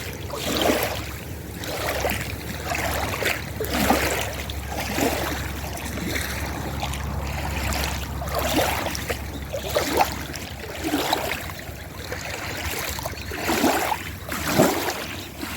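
Small waves lapping and splashing against a rocky lakeshore, in irregular splashes roughly once a second, over a low steady rumble.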